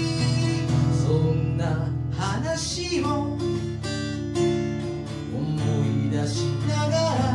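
Music: a steel-string acoustic guitar strummed in a steady rhythm, with long held low bass notes underneath.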